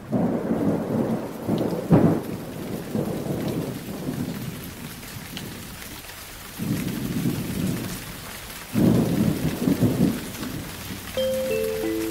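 Thunderstorm: steady rain with three long rolls of thunder, the loudest with a sharper clap about two seconds in. A few bell-like music notes start near the end.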